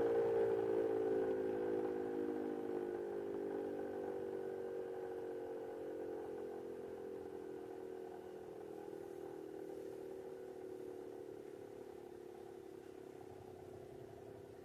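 3D-printed three-port Tieftonsirene (German low-pitch siren), its intake blocked, winding down: a low growl of several tones that slowly falls in pitch and fades away.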